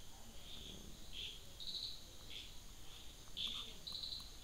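Faint insect chirping: short high chirps repeating irregularly over a steady high buzz.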